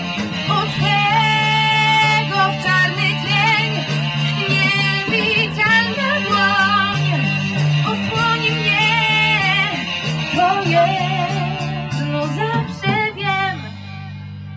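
A live band plays a passage of a song on guitars and drums, with steady bass notes under a wavering lead melody. Near the end the music drops to a quieter held chord.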